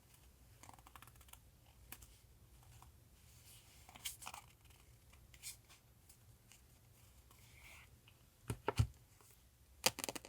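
Paper and journal handling at a desk: scattered soft rustles and light taps, with two louder knocks near the end.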